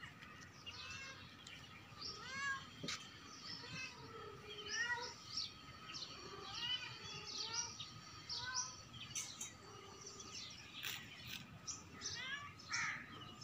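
Many short, high-pitched animal calls in quick succession, some overlapping, each a brief rising-and-falling chirp or mew.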